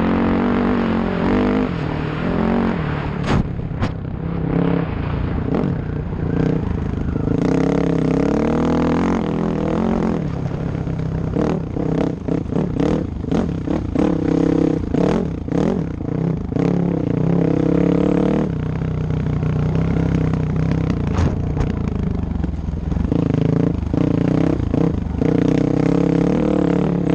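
Off-road motorcycle engine under way on a dirt trail, its pitch rising and falling repeatedly as the throttle opens and closes, with scattered knocks and clatter throughout.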